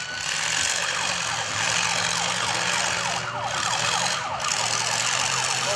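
Siren on a fire-rescue-themed demolition derby car, holding a high wail at first and then breaking into fast repeated sweeps, over the car's engine running.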